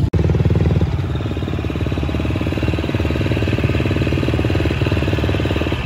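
Motocross bike engine idling close by with a fast, even firing rhythm, a little louder for the first second.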